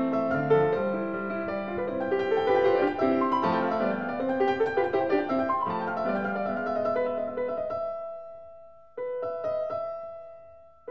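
Background piano music, a gentle run of notes that fades out about eight seconds in and starts again about a second later.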